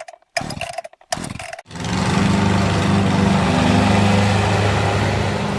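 Riding lawn mower engine: three short bursts in the first second and a half, then the engine catches and runs steadily.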